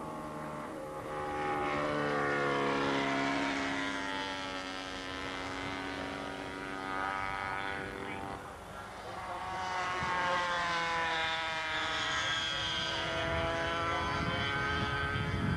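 Racing motorcycle engines going past at speed, their note rising as a bike comes on and falling away as it goes by. They fade out just past the middle, then a second group builds up and stays loud.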